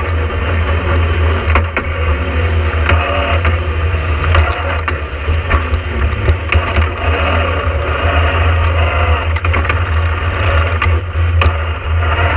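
Talbot Sunbeam rally car's all-steel Vauxhall 2.0-litre four-cylinder engine running under way, heard from inside the cabin, with a steady low drone and rattles and several sharp knocks through it.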